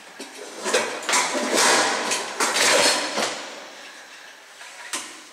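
Clattering and rattling of household items being moved about, for two or three seconds starting about a second in, then fading. A single sharp knock near the end.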